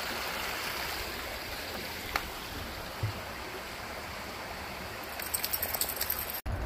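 A small, shallow woodland stream flowing over stones and around boulders, a steady burble of water. Near the end comes a run of crackling clicks, and then the sound breaks off abruptly.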